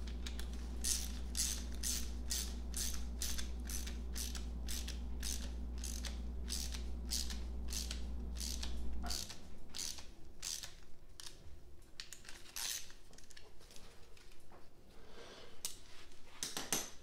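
Ratchet wrench clicking steadily, about three clicks a second, as a bolt on a Datsun L28 engine's timing-chain slack-side guide is run in. The clicks turn slower and more scattered in the second half, and a low background hum stops about nine seconds in.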